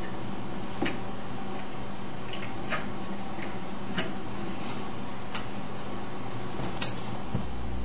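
Steady low hum with a few faint, scattered clicks and taps, from hands handling a plug-in charger at a wall outlet.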